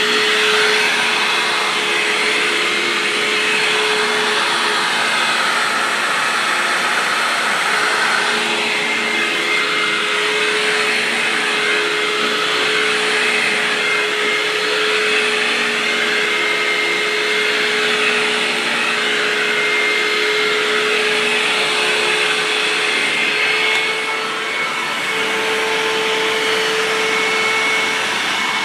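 Hoover WindTunnel upright vacuum cleaner running steadily: a continuous motor hum over a rush of air, its note shifting slightly near the end.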